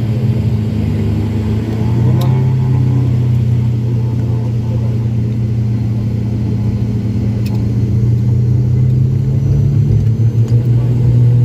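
Turboprop engines and propellers of an ATR 72-500 airliner droning, heard from inside the cabin. The drone gets louder about two seconds in and again near the end as power comes up and the plane speeds along the runway.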